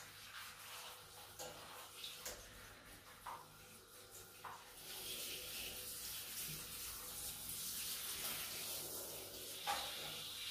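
Water spraying from a handheld shower head onto a marmot's wet fur in a sink. The spray's hiss starts about halfway through; before that there are only a few faint taps.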